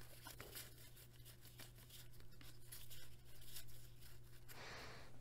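Faint, quick ticks and rustles of stiff cardboard trading cards sliding off one another as a stack is thumbed through by hand, over a low steady hum.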